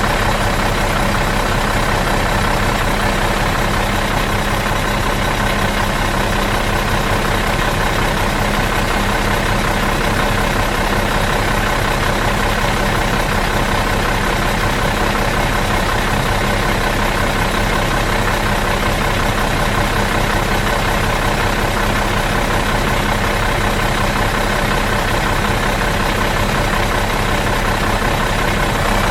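Bus engine idling in neutral, a steady even running with a fast low pulse and no change in speed.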